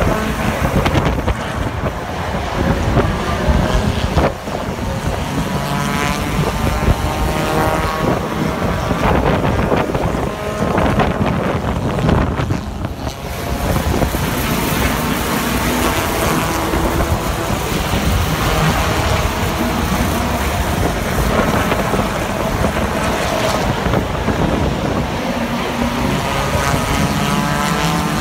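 Several hobby stock race car engines running on the track, their pitch rising and falling, with wind buffeting the microphone.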